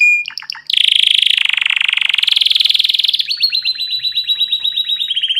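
Domestic canary singing: a few quick falling notes, then a long, very fast rolling trill that changes after about three seconds into a slightly slower trill of repeated notes.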